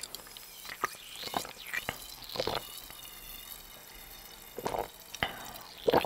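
Close-miked swallowing of sparkling water drunk straight from the bottle: a series of separate gulps with a faint fizzy hiss between them.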